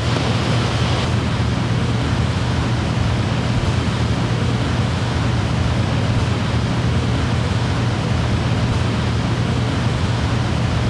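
Steady loud hiss with a low hum underneath. A brighter part of the hiss drops away about a second in, and there are no distinct events.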